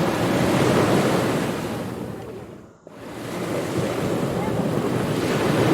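Ocean surf sound effect: waves washing in, the rush swelling and then fading away to almost nothing about halfway through before the next wave builds up again.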